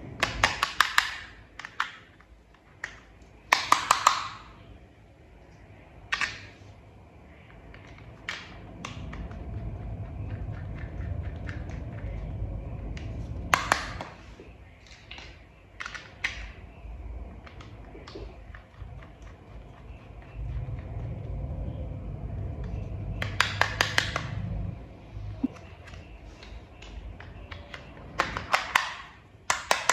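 Small toy parts being handled and fitted together: several bursts of rapid clicking and snapping, single ticks in between, and two longer stretches of low rubbing handling noise.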